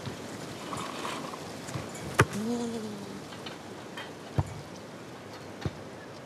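Open-air ambience on a grass football pitch, with a sharp thud about two seconds in, then a short distant shout, and two more thuds later, like a football being kicked.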